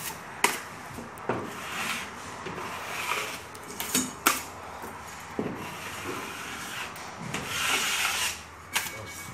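Drywall knife scraping joint compound over joint tape on a gypsum-board seam, in repeated drawn strokes with a few sharp clicks of the blade against the board.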